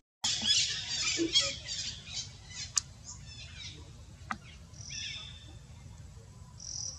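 Macaque giving a rapid series of high-pitched squealing calls for about three seconds, then a few fainter, shorter squeals later on; a sharp click cuts in near the three-second mark.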